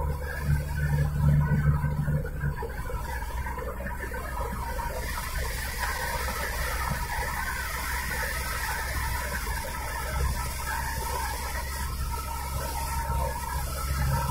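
Car driving at speed, heard from inside the cabin: steady tyre and engine noise, with a low engine hum a little stronger in the first two seconds.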